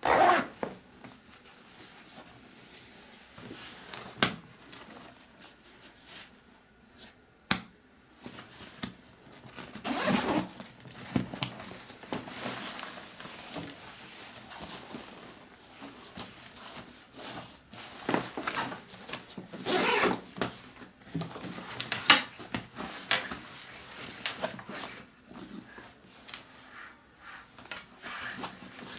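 A camera bag being handled and opened: fabric rustling and zipper-like scrapes, with scattered sharp clicks such as about four and seven seconds in.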